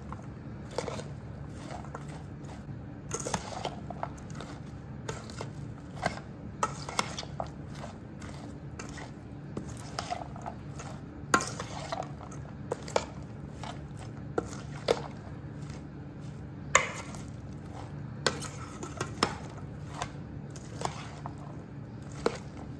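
A metal spoon stirring sliced palm heart salad in a stainless steel bowl, with irregular clinks of the spoon against the bowl.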